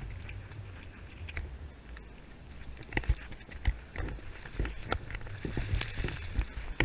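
Ocean surf washing over the shallow beach, with wind rumbling on the microphone. From about three seconds in come irregular splashes and knocks as water sprays over the camera.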